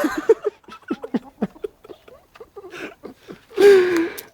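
Chickens clucking in short, quick calls while they eat scattered feed. A louder drawn-out call comes about three and a half seconds in.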